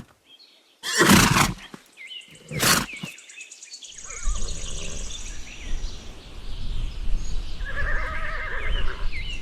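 A foal neighing: two short, loud calls about one and three seconds in, then a quavering whinny near the end.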